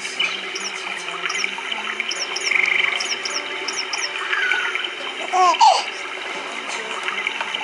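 Pet bird on its swing chirping and warbling: a string of short high chirps, a brief buzzy trill, a falling whistle, then two louder arched calls about five and a half seconds in, over a steady background hiss.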